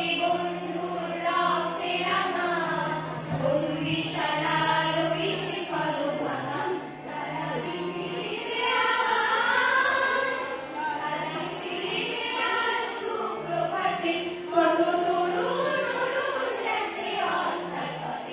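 A group of girls and a woman singing a song together in unison through microphones, over a steady low drone.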